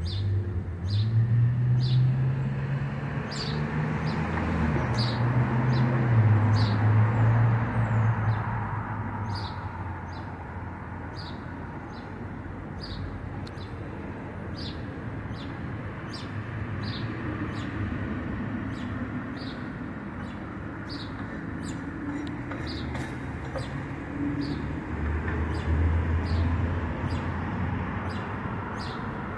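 A small bird chirping over and over, short high chirps about twice a second, over a low engine hum that is loudest in the first eight seconds and swells again around 26 seconds.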